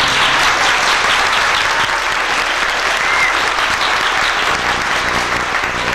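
Audience applauding steadily in a school auditorium at the end of a song.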